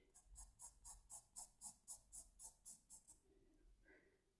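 White charcoal pencil hatching on paper: faint, even scratching strokes, about four a second, that stop about three seconds in.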